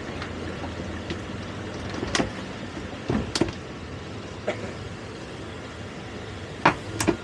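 Outboard motor idling steadily, with several sharp knocks and clacks over it, the loudest near the end.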